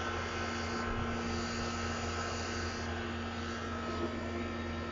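Steady whir and hum of running outdoor air-conditioning units, a fan's even rush with a low hum and a few steady tones.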